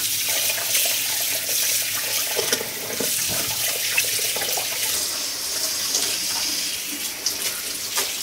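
Kitchen tap running, water pouring steadily into a sink, with a few light knocks near the end.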